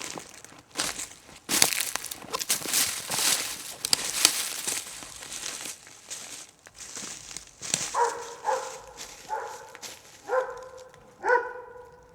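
Footsteps crunching through dry leaves and twigs on a forest floor, in irregular crackling strides. From about eight seconds in, an animal gives about six short pitched calls in quick succession.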